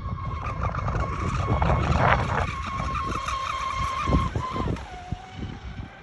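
Pro Boat Sonic Wake 36 RC boat's brushless electric motor and drive whining at speed across the water. The high, steady whine drops in pitch about three-quarters of the way through.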